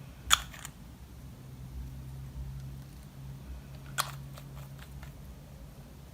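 Two sharp clicks about four seconds apart, the first louder, each followed by a few fainter ticks, over a low steady hum.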